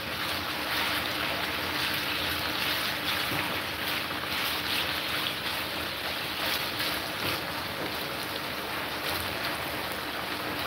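Diced chicken sizzling steadily in oil in a nonstick frying pan, with a spatula stirring it now and then.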